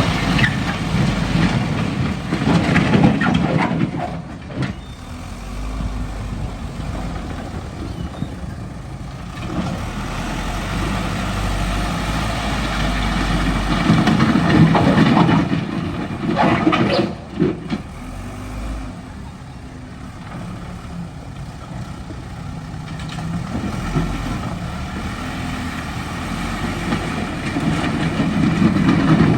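Backhoe's heavy diesel engine running under work, its level swelling and easing several times, with a brief hiss a little past halfway.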